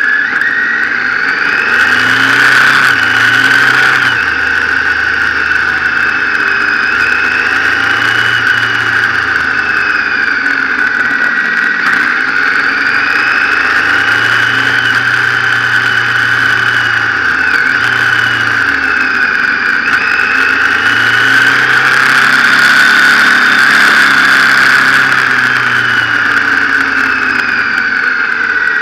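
Motorcycle engine running on a winding mountain descent, its revs rising and falling several times through the bends, under steady wind and road noise on the bike-mounted camera.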